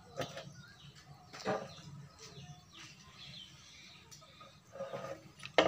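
Faint bird chirps over a steady low hum, with a knock about a second and a half in and another near the end as the amplifier board with its metal heatsink is handled.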